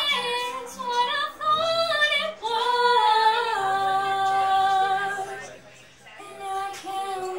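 Female lead vocalist singing a Celtic rock song live, with long held notes. One note fades away a little past halfway, then she takes up another sustained note.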